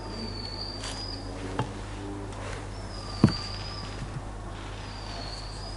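Distant fireworks: thin high whistles, each about a second long, recurring every couple of seconds, with two dull bangs, the louder one about three seconds in.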